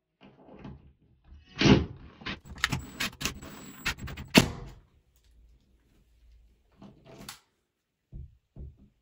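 Sharp clicks and knocks of a screw being set and driven into the wooden backing behind a drywall patch with a Ryobi cordless drill. The loudest knocks come about 1.7 and 4.4 seconds in, with the drill turning slowly between them, and a few faint taps follow near the end.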